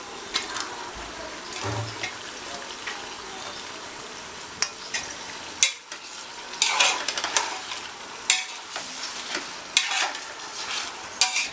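Chopped tomatoes frying in hot oil with onions and green chillies in an aluminium pressure cooker, with a steady sizzle. From about halfway in, a spatula stirs the mix, knocking and scraping against the pot's sides.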